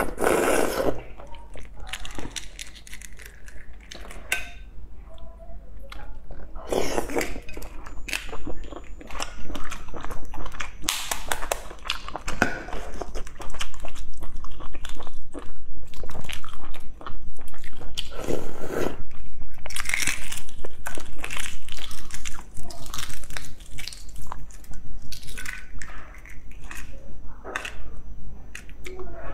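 Close-miked eating sounds: eggshells cracking and crinkling as boiled eggs are peeled by hand, with bites and wet chewing of the egg. A busy run of small crackles and clicks, louder for a while in the middle.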